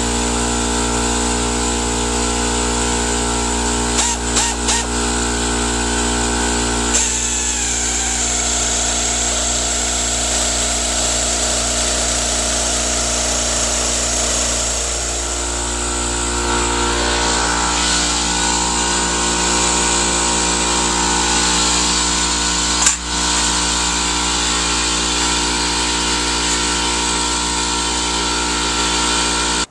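Pneumatic nibbler running steadily as it cuts through 22-gauge sheet steel: a buzzing machine chatter with a hiss of air.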